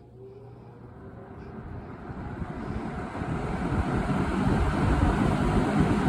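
1970s Electrohome 20-inch box fan spinning up from rest. The rush of air grows steadily louder over about five seconds, with a deep rumble underneath, then levels off near the end.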